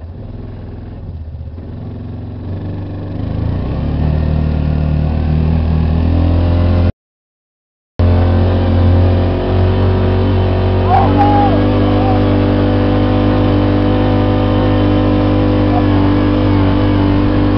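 Engine of a vehicle towing a person on a rope across snow. It picks up speed and gets louder a few seconds in, then runs steadily. The sound cuts out completely for about a second in the middle.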